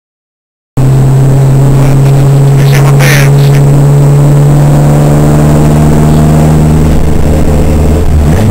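Engine of a 4x4 off-road vehicle heard from inside the cabin while driving, cutting in abruptly about a second in and running loud at a steady note, which drops near the end as the vehicle eases off.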